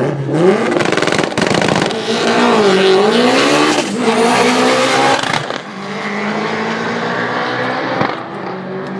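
Turbocharged 1.8-litre 20-valve four-cylinder of an Audi quattro drag car launching and accelerating hard down the strip, its pitch climbing and dipping back at each upshift, loudest in the first five seconds as it passes. After that it goes on steadier and fainter as the car pulls away down the track.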